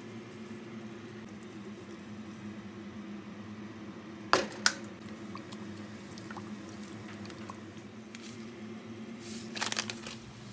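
Seasonings being added by hand to a pot of simmering vegetables and meat on a gas stove: two sharp clicks a moment apart about four seconds in, and a short rattle of clicks near the end, over a steady low hum.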